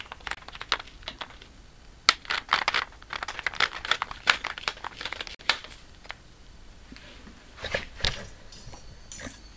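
Keyless chuck of a power drill being twisted tight by hand to grip a thin steel wire: a rapid, irregular run of clicks and scrapes from the sleeve and the handling, thinning out after about six seconds.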